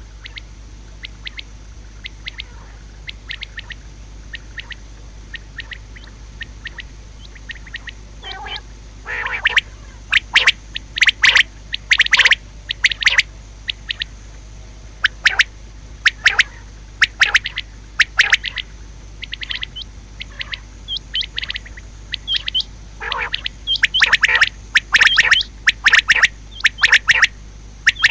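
Common quail calling: a run of short, sharp notes in irregular clusters, faint at first and much louder from about nine seconds in, over a steady low hum.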